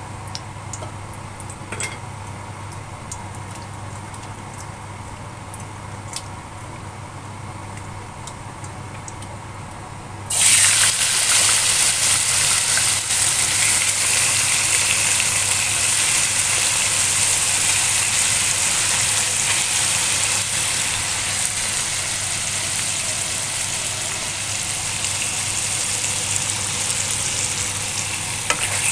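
Marinated chicken wings frying in hot oil in a wok. At first there is only faint crackling of the oil over a low steady hum; about ten seconds in a loud sizzle starts suddenly as the wings go into the pan, and it carries on steadily, easing slightly toward the end.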